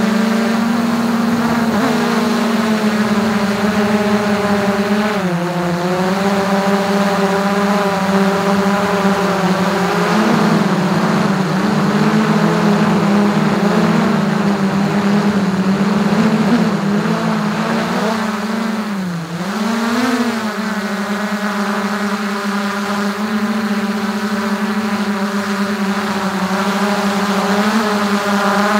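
DJI Mavic 2 quadcopter's motors and propellers whining, heard from on board at very close range: a loud, steady buzz whose pitch dips briefly and recovers about five seconds in and again about two-thirds of the way through.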